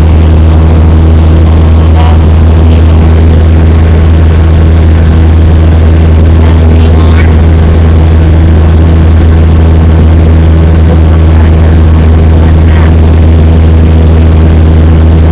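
Cessna 172's piston engine and propeller droning steadily in cruise, heard from inside the cabin.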